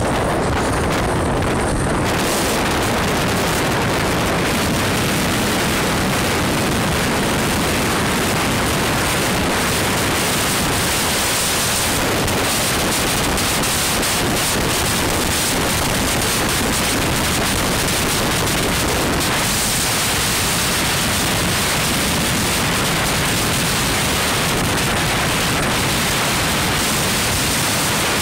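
Steady rushing wind and road noise from a vehicle travelling at speed, loud on a phone's microphone. The hiss brightens about two seconds in.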